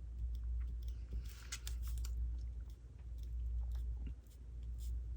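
Pen tip dabbing dots onto paper: scattered light taps and a little scratching, over a low steady hum.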